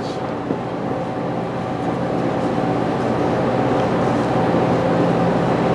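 Steady background hum and hiss of the room, with a faint knock about half a second in.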